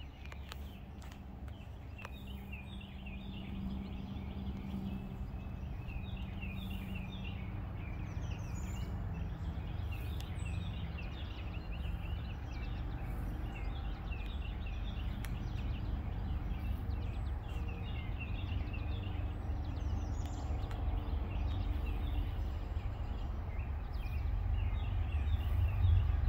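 Songbirds chirping over a low rumble that grows steadily louder and swells near the end: a diesel-hauled freight train approaching from a distance.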